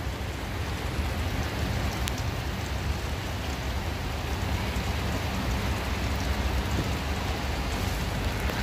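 Heavy rain pouring steadily, an even hiss with a low rumble underneath.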